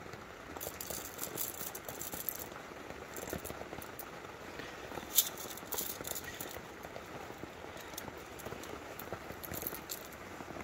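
Coffee beans rattling in a small hand coffee grinder, in short irregular spells of sharp crackling clicks.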